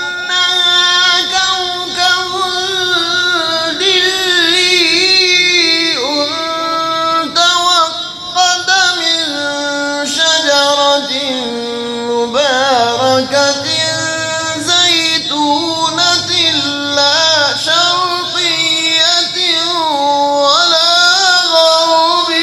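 A man reciting the Quran in the melodic, drawn-out tajweed style. His voice holds long ornamented phrases that rise and fall in pitch, with short breaths between them.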